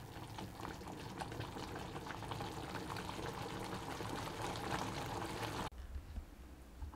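Thick creamy pasta sauce bubbling in a pan on the stove, a dense run of small pops and plops. It cuts off suddenly about five and a half seconds in, leaving only a faint low hum.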